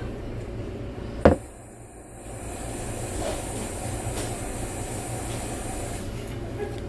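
A single sharp knock a little over a second in, over a steady low hum.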